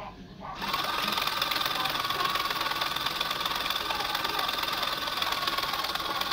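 Electric screwdriver motor whining steadily as it backs out a heatsink screw on an inverter circuit board, starting about half a second in.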